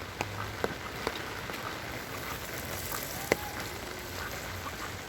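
Heavy rain falling, a steady hiss with a few sharp drip taps scattered through it.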